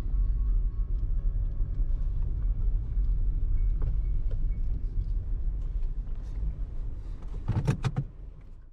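Steady low rumble of a vehicle on the move, fading near the end, with a short run of knocks just before it fades.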